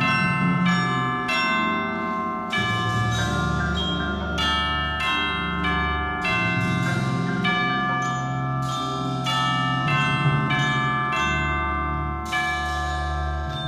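A percussion ensemble playing: mallet keyboard instruments such as marimbas and vibraphones strike ringing chords in a steady repeated pattern, about two strokes a second, over sustained low bass notes.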